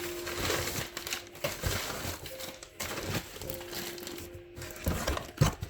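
Crinkling and rustling of cardboard and plastic packaging being handled, with scattered small clicks and knocks.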